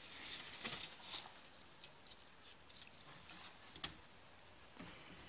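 Faint scattered rustles and light taps as a puppy and a rabbit move about at a wooden rabbit hutch on wood chips and hay, with one sharper click about four seconds in.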